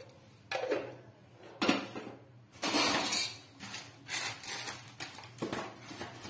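Metal spoon and steel kitchenware clinking and clattering, a string of separate knocks about a second apart with one longer clatter near the middle, as spices are measured out and added.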